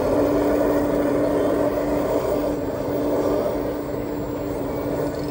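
Steady motor hum with one constant mid-pitched tone, from running machinery.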